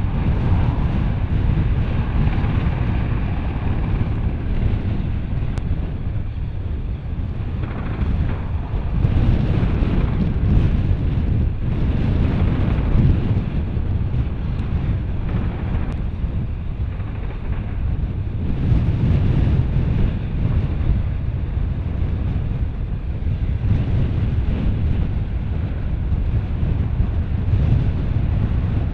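Super Puma transport helicopter's rotor and turbines running close by as it lands and then sits with its rotors turning, heard as a steady low rumble. Wind buffets the microphone throughout.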